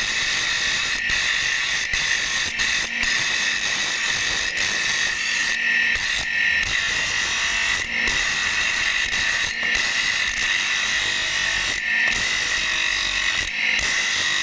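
Bench grinder running with a steady high-pitched whine as a steel axe blank is held against its abrasive wheel and ground.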